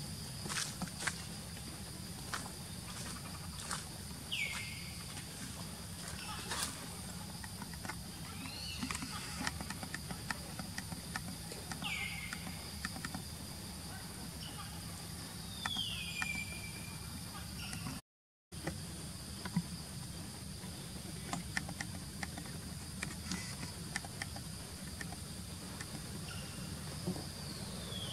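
Outdoor ambience with a steady low hum and a steady high-pitched drone, scattered light clicks and rustles, and a few short whistled calls, each sliding down in pitch and levelling off. The sound drops out briefly about two thirds of the way through.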